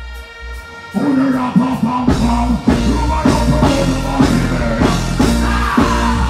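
Live reggae/dancehall music played loud through a stage sound system, with a male vocalist singing over the backing track from about a second in and a heavy bass line entering about a second later.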